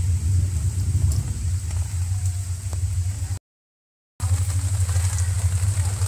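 Heavy rain falling on concrete steps, heard mostly as a steady low rumble. The sound drops out to silence for under a second a little past the middle.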